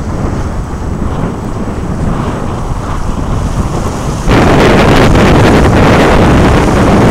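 Strong wind buffeting the microphone over choppy sea water, with a much louder gust setting in suddenly about four seconds in.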